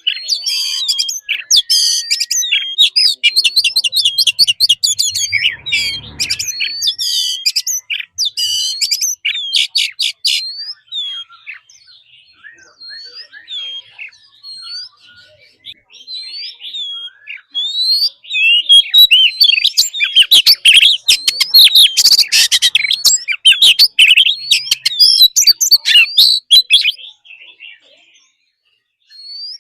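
Oriental magpie-robin singing: loud, rapid runs of varied whistles, trills and chirps in long bursts, with a thinner stretch of scattered notes in the middle before another dense burst.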